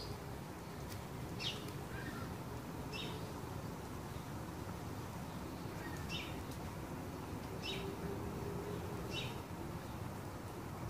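Raccoon kit chirping: short high-pitched chirps repeated about every second and a half.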